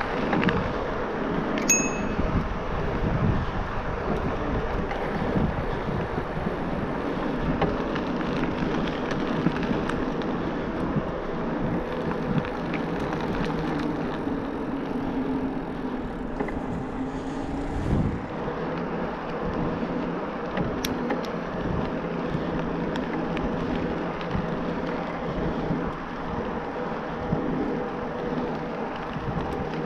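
E-mountain bike ridden at speed: steady wind on the action camera's microphone mixed with tyre rumble and drivetrain noise, with a short metallic ping about two seconds in.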